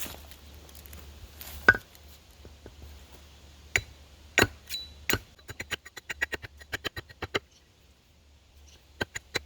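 Hand tools knocking and clicking against the metal of an excavator's fuel tank and frame as it is pried at: one sharp knock, a few separate strikes, then a quick run of light clicks, with more clicks near the end.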